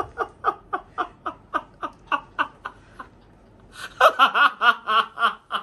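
A woman and a man laughing: a string of short, even laughs about four a second, then louder, fuller laughter from about four seconds in.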